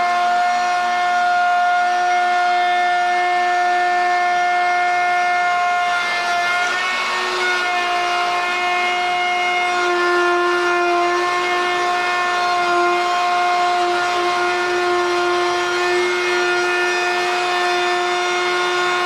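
Handheld power cutting tool running steadily at high speed while cutting a rabbet along a wooden cabinet side, with a constant whine that dips briefly in pitch as it loads up, about six seconds and ten seconds in.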